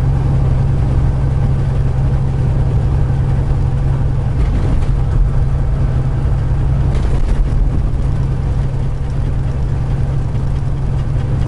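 Semi truck's diesel engine running steadily at cruising speed, heard from inside the cab as a constant low drone with road noise. Two brief rushes of noise come about four and seven seconds in.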